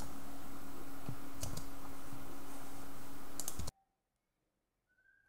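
A few sharp clicks over a steady hiss and a low, steady hum. About three-quarters of the way in, the sound cuts off abruptly to near silence.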